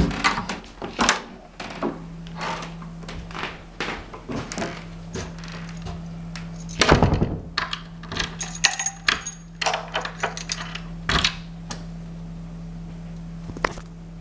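Keys jangling and clicking while a fire door is handled and locked: scattered small knocks and clicks, one heavy thud of the door about seven seconds in, then a run of jingling key clicks as the key turns in the lock. A steady low hum runs underneath from about two seconds in.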